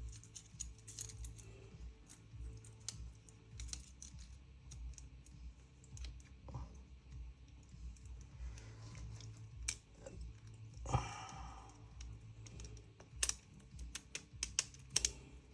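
Scattered light clicks and taps of small metal and plastic trigger-group parts being handled and fitted back together by hand, with a brief rustle about eleven seconds in.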